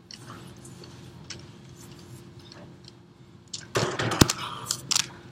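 Sneakers scuffing and sliding on a hardwood floor during a glide footwork move: soft scuffs at first, then from about three and a half seconds in a louder scraping slide with several sharp taps of the shoes. A low steady hum runs underneath.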